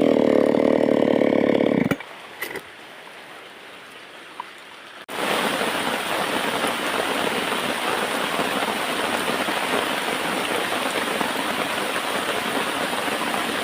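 Small chainsaw engine running steadily, then cutting off abruptly about two seconds in. After a quiet stretch with a couple of light clicks, a steady even hiss starts abruptly about five seconds in and runs on.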